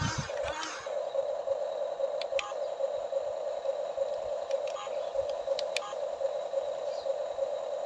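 Electric motor of a Huina RC excavator whining steadily at one pitch, with a few faint clicks.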